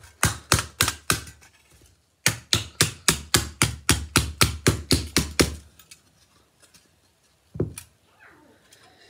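Old red metal toy car being struck over and over to break its seats out: three knocks, a short pause, then a run of about a dozen quick strikes at about four a second, and one last thump near the end.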